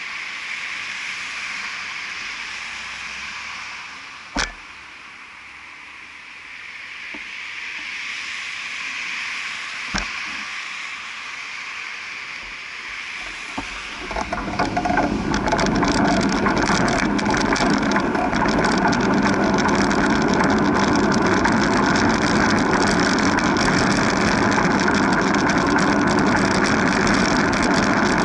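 Car traffic passing through a street intersection, with two sharp clicks. About halfway through, loud steady wind noise on the microphone and rattling take over as the bicycle gets moving.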